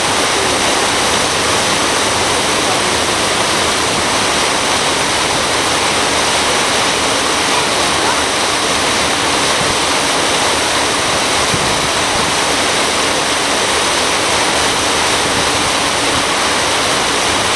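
Steady, loud rushing of water churning past a moving boat's hull.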